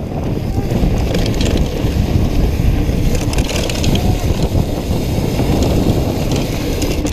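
Heavy wind rush on a helmet-mounted camera's microphone as a mountain bike descends a loose dirt trail at speed, with the tyres rumbling over the dirt and bursts of crunching and rattling about a second in and again around three to four seconds in.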